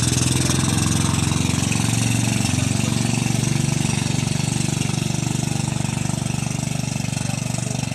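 Motorised outrigger boat (bangka) engine running steadily close by, with a fast, even firing beat.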